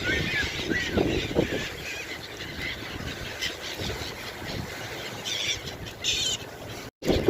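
Seagulls squabbling over thrown bread: short, gliding cries from several gulls near the start and a few sharper calls later on, over a steady background rush.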